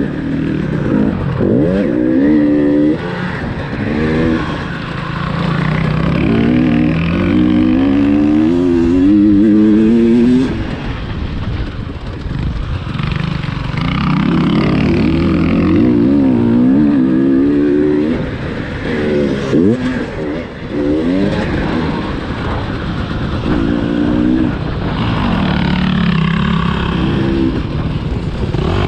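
KTM 300 TPI's fuel-injected two-stroke single-cylinder engine being ridden hard, its pitch climbing with each burst of throttle and falling when the throttle is shut, over and over.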